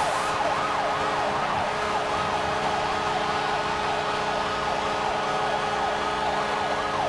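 Arena goal horn sounding with a steady held tone and a siren wailing up and down over and over, over a cheering crowd, the home rink's signal that the Capitals have scored.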